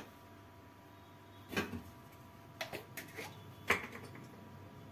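Light clicks and short scrapes of small hand tools working on a hard drive's circuit board while solder is cleaned off, in a few scattered strokes over a faint steady whine.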